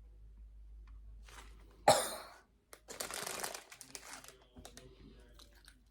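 A single short cough about two seconds in, then a second or so of rustling, such as a crinkly snack bag being handled.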